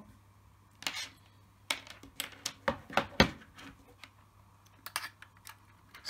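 Irregular clicks and light knocks from an iPhone 5 and its USB cable being handled and plugged into a laptop, the loudest about three seconds in.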